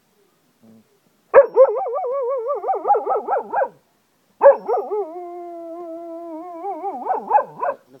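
Cocker spaniel howling like a wolf: two long howls with a short break between them. The first wavers rapidly up and down in pitch; the second holds steadier, then breaks into wavers near its end.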